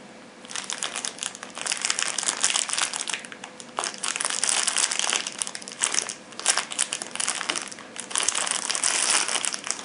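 Knife packaging being handled, crinkling and crackling in irregular bursts with a few short pauses.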